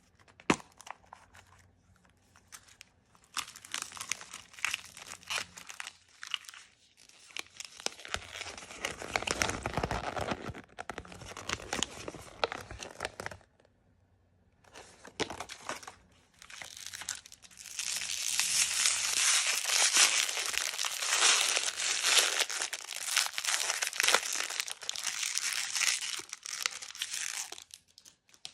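Blind-bag packaging being crinkled and torn open by hand in two long spells of crackling, with a short pause about halfway through. The second spell is the louder.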